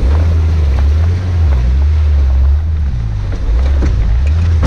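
Turbocharged TB42 straight-six of a GQ Nissan Patrol comp truck running hard, heard from inside the cab. The engine note eases off briefly about three seconds in and then comes back up, with a few sharp knocks over it.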